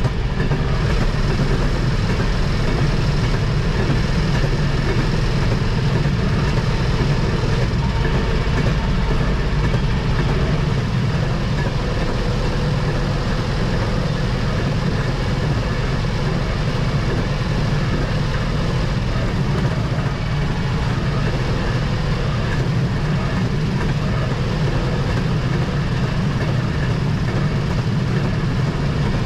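Railroad motorcar (speeder) running steadily along the track: a constant engine note with the rumble of its wheels on the rails.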